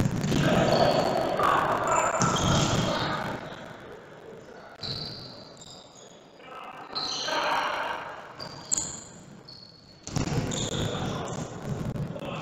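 Futsal being played on an indoor court: the ball thudding and bouncing and shoes squeaking on the floor, echoing in the hall. It is loudest in the first few seconds and again near the end, with a quieter stretch in between.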